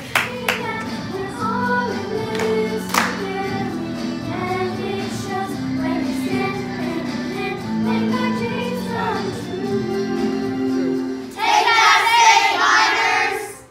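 A group of girls singing a slow melody together in long held notes. Near the end the singing stops and the group breaks into a louder shout.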